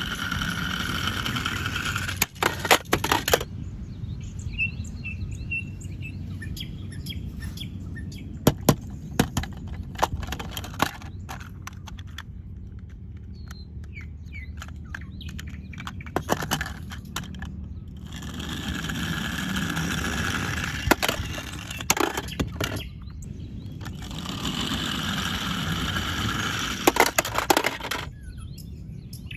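Plastic toy vehicles being handled: clusters of sharp clicks and knocks come every few seconds. Underneath is a steady whirring noise that swells for a few seconds at a time.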